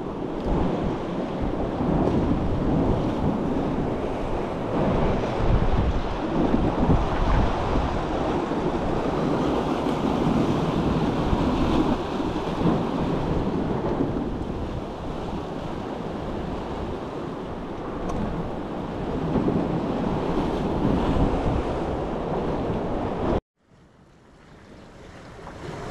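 Sea swell surging against rocks, with wind buffeting the microphone: a steady rough rushing noise. Near the end it cuts off suddenly, and a quieter rush builds back up.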